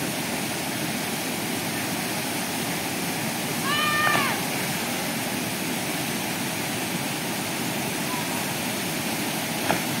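Waterfall pouring steadily into a plunge pool. About four seconds in comes a single short high cry that rises and falls, and just before the end a sharp slap as someone hits the water.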